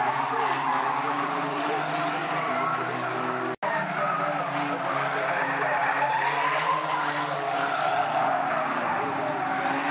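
Several Japanese banger-racing cars racing, their engines revving hard against the sound of skidding tyres. The sound cuts out for an instant about a third of the way in.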